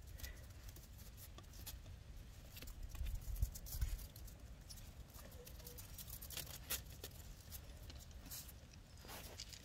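Faint scattered clicks and scuffles of miniature pinscher puppies' paws and claws on a wooden deck and snow, with a few louder ticks about three to four seconds in.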